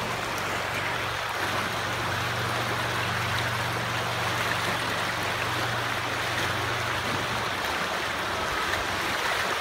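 River water running over rocks in a shallow riffle along the bank: a steady rushing.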